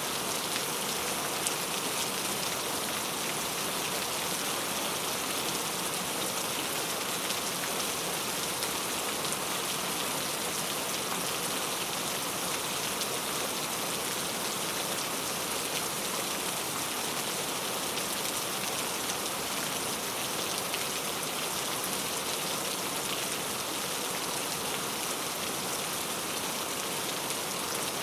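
Heavy rain falling steadily, a dense, even hiss with the patter of individual drops.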